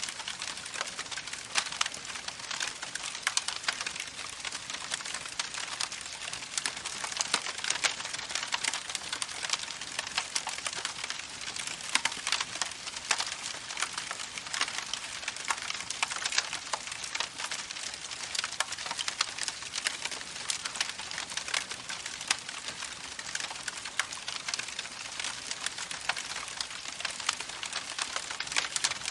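Campfire crackling, with many irregular sharp pops and snaps, over the steady rushing of a babbling creek.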